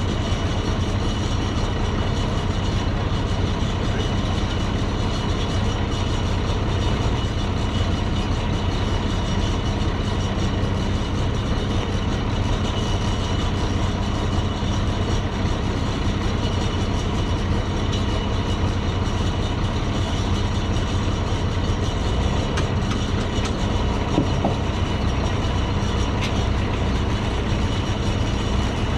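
A vehicle's engine running steadily with a low, even hum.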